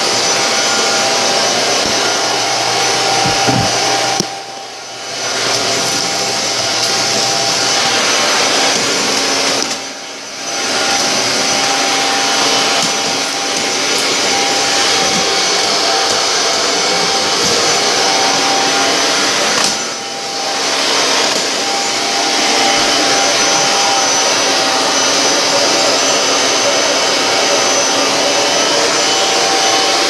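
Vacuum cleaner running steadily with a steady whine, its hose and floor tool being worked over a tile floor. The sound dips briefly three times, about four, ten and twenty seconds in.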